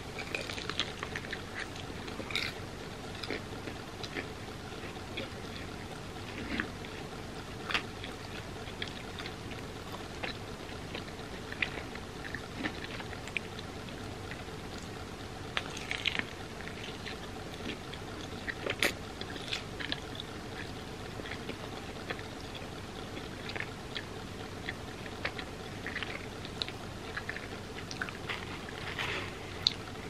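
Close-miked eating of a hotteok (Korean sweet filled pancake) sandwiched with vegan ice cream: bites and moist chewing, with scattered short crunches and mouth clicks over a faint steady background hiss.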